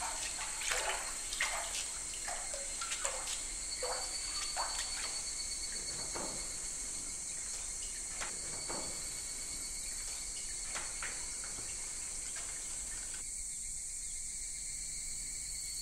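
Water dripping into water: single plinking drops, each falling in pitch, several a second at first and then thinning out. A steady high hiss with a faint insect-like chirring runs underneath. The drips stop a couple of seconds before the end, leaving only the thin high hiss.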